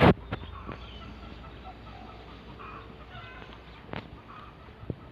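Chickens clucking in the background. A loud sharp knock comes right at the start, and a few fainter knocks follow later.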